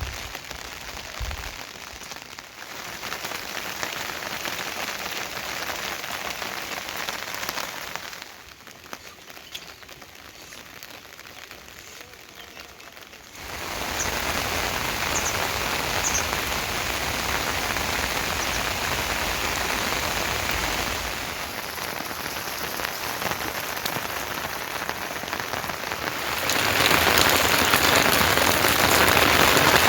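Rain falling steadily and pattering on surfaces. It grows heavier and louder in the second half, heaviest near the end.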